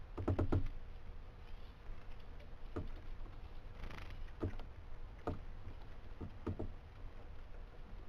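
Juvenile great spotted woodpecker on a wooden post: light taps and knocks, a quick run of several just after the start, then single ones every second or so. A short rustle comes about halfway through as it shakes out its wet feathers.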